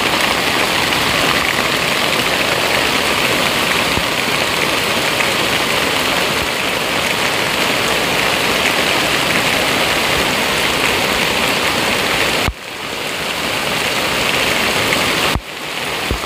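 Heavy rain falling on sheets of muddy standing water and wet ground, a steady dense hiss of drops. Near the end the sound drops off sharply twice and swells back.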